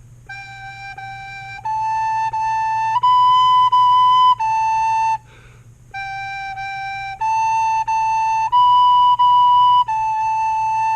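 Soprano recorder playing the beginner phrase G, G, A, A, B, B, A: steady tongued notes stepping up and back down. It plays the phrase twice, with a short breath between the two.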